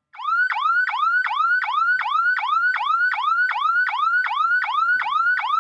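Electronic alarm siren of a flood detector device sounding a fast, repeated rising whoop, nearly three sweeps a second. It is the warning the detector gives when floodwater reaches the danger level.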